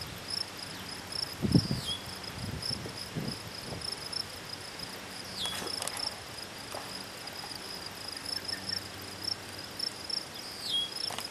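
Insects chirping in a steady high-pitched pulse, about three a second, with a short falling whistle three times and a low thump about one and a half seconds in.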